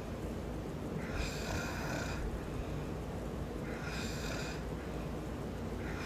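A man snoring in his sleep, one breath about every three seconds. Each snore has a raspy, higher-pitched part about a second long, heard three times, over a steady low rumble.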